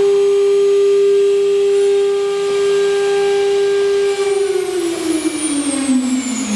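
9 kW CNC wood router spindle whining at a steady high pitch, then about four seconds in it winds down, the whine falling steadily in pitch as the spindle slows.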